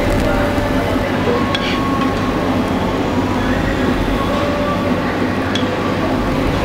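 A steady, loud rumbling background noise with faint held tones, and a couple of light clicks of a metal spoon against a stainless steel pan as grated Parmigiano Reggiano is spooned in.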